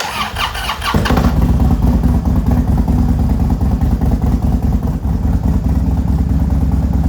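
Harley-Davidson V-twin motorcycle engine being started on a freshly fitted battery: about a second of starter cranking, then it catches and runs steadily.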